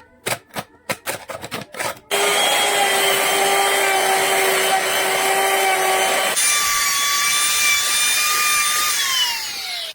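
About ten quick, sharp strokes on wood, then a power tool working wood runs loud and steady. Partway through it jumps to a higher pitch, then drops in pitch near the end and cuts off.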